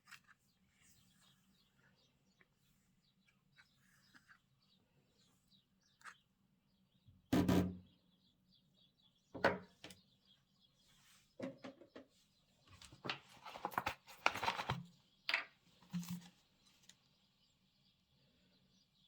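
Slime being squished and mixed by hand: scattered short wet clicks and squelches, one louder squelch about a third of the way in and a dense run of them in the second half.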